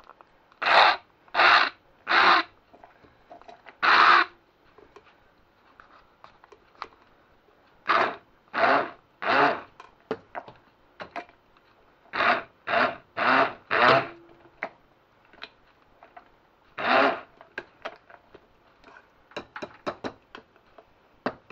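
Stick blender pulsed in short bursts, chopping tomatoes and garlic into a thick, chunky sauce: about a dozen half-second pulses in groups of three or four, with a last single pulse. Light clicks and knocks follow near the end.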